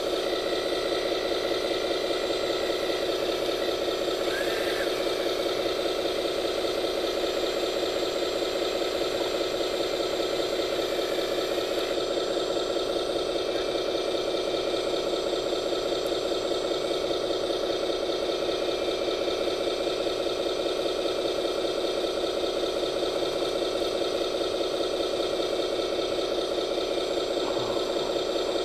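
Radio-controlled scale construction machine running with a steady, unchanging drone.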